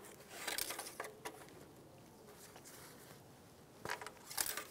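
A cloth rag rustling and rubbing as gloved hands wipe an engine oil dipstick clean, in two short bursts: one about half a second in and one near the end.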